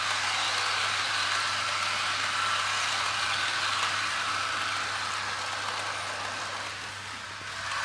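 HO-scale Bachmann Spectrum Acela Express model train running past on its track: a steady mechanical whirring and rattling of wheels, motor and gears, dropping a little near the end.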